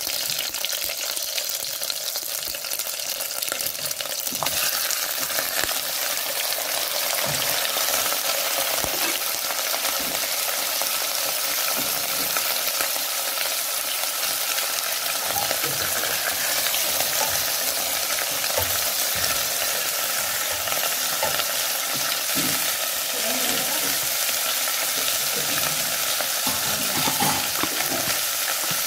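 Shallots, garlic, lemongrass and star anise, then chunks of raw beef, sizzling in hot oil in a steel pot. The frying is a steady hiss that gets louder about four seconds in, with occasional soft knocks of stirring.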